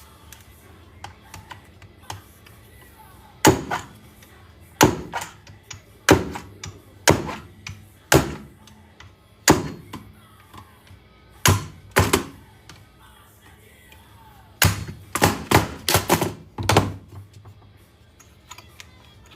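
Irregular sharp knocks and taps of hand tools working on scrap aluminum to free parts that won't come out easily, about one a second, with a quick run of several knocks about three-quarters of the way through.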